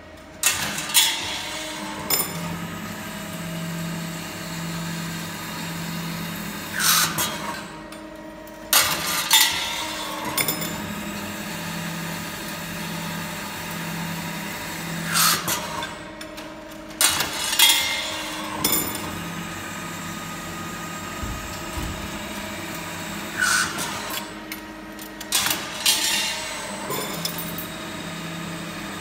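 FEDA FD-300-2A automatic hydraulic lathe running its automatic cycle: a steady hum from the machine, with a brief falling whine and a cluster of sharp metallic clacks repeating about every eight seconds, three times over.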